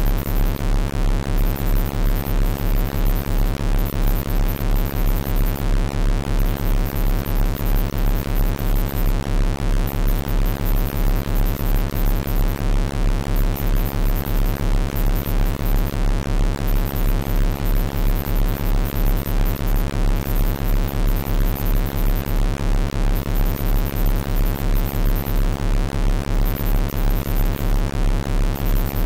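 Synthesized low electronic tone at the 33.13 Hz Rife frequency, held steady with a quick, even pulse and a set of steady higher overtones.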